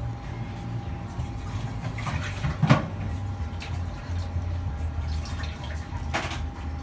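Restaurant room ambience: a steady low hum with a faint steady tone, broken by brief clatters, the loudest about two and a half seconds in and another near the end.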